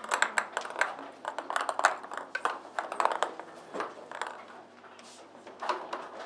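Light ping-pong-type ball batted by kittens, clattering against the wire cage and its floor: a quick irregular series of light clicks and taps that thins out midway, with a few more near the end.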